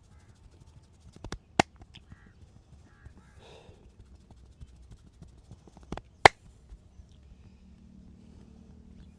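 Massage strikes: two pairs of sharp cracks, one pair a little over a second in and another about six seconds in, the last crack the loudest.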